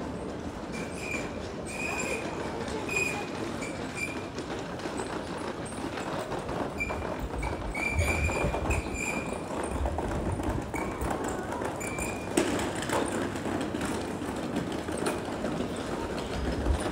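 City street ambience on foot: footsteps, clatter and a hum of background voices, with a run of short high squeaks in the first half.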